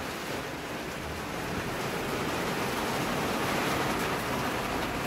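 Heavy rain pouring down on a sailboat, a steady hiss that grows slightly louder.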